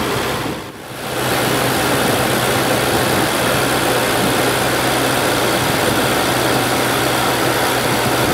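Ferrari California T's 3.8-litre twin-turbo V8 running steadily, with a steady low hum under it. The sound drops briefly just under a second in.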